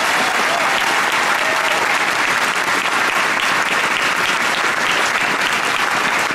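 A large crowd applauding, many hands clapping in a dense, steady crackle.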